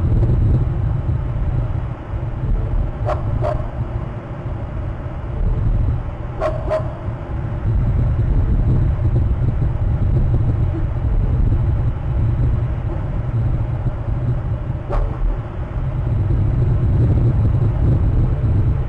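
Steady low rumble on an outdoor webcam microphone, with short sharp sounds about three, six and a half, and fifteen seconds in.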